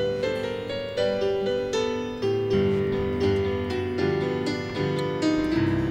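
Yamaha CP stage piano playing an instrumental introduction: a melody over chords, with notes struck a few times a second.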